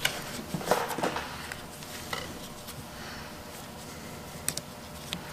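Steel tie wire being handled and twisted around wet fibreglass exhaust wrap on a header: a few light metallic clicks and scrapes, scattered through, over a low background hiss.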